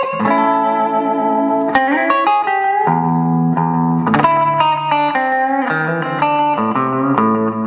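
Intro theme music led by a guitar with effects, playing a run of single notes.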